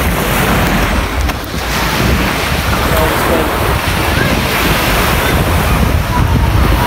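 Strong lake breeze buffeting the microphone with a steady low rumble, over small waves washing on the lake shore.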